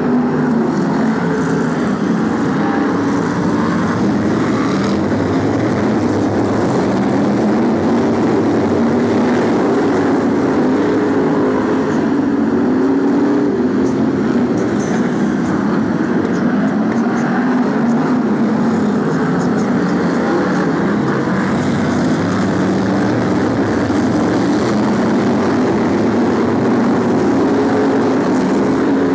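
A pack of BriSCA F1 stock cars' V8 engines racing, their overlapping engine notes rising and falling in waves as the cars lap the oval.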